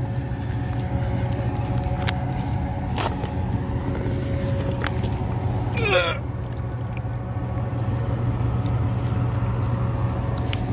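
A steady low engine drone with a few steady pitched tones above it, with faint clicks here and there and one short sweeping sound about six seconds in.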